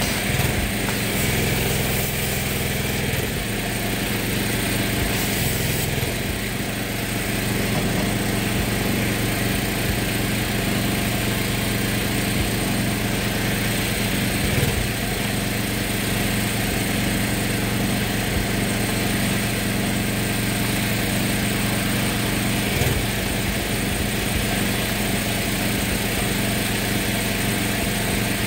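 Small gasoline engine of a pressure washer running steadily at a constant speed. For the first few seconds a foam cannon hisses as it sprays foam.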